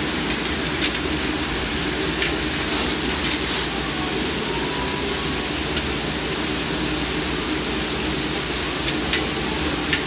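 Conveyor dishwashing machine running: water spraying and hissing inside the wash chamber over a steady hum, with a few faint clicks.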